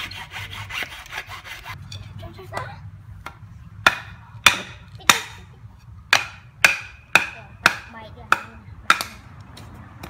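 A hacksaw is cutting through a wooden branch with quick, even strokes. The sawing stops just under two seconds in. From about four seconds in come about nine sharp knocks of wood striking wood, roughly two a second.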